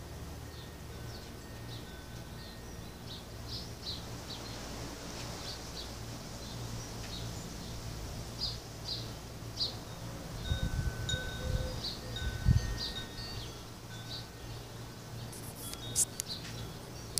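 Wind chimes tinkling: scattered short high ringing notes, some held briefly. A few low rumbling bumps hit the microphone about two thirds of the way through.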